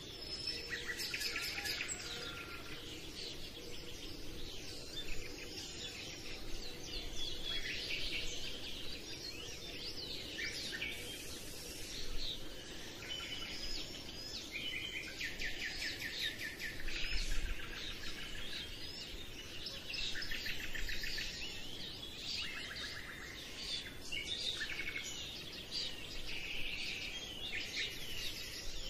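Small birds chirping and trilling, many short calls and quick trills overlapping, over a steady background hiss.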